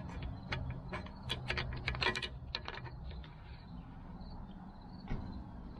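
Light metallic clicks and clinks of rear drum brake parts being handled and fitted by hand, dense for the first three seconds and then only a few, over a steady low hum.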